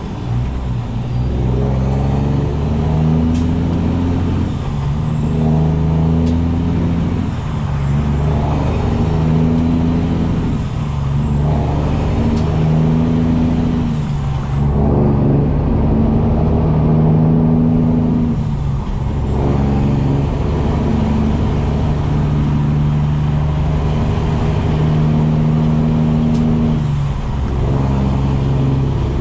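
Straight-piped Peterbilt 389 diesel engine pulling hard through repeated gear changes, heard from inside the cab: the engine note drops away and picks up again every few seconds as each gear is shifted. A high turbo whistle rises and falls with the revs.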